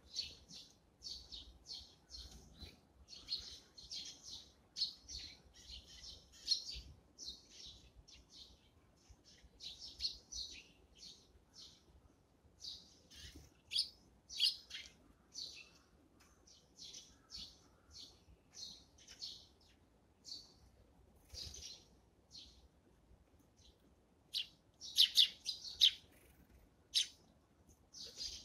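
Eurasian tree sparrows chirping: a long string of short, high chirps, often several a second, loudest in a quick cluster near the end.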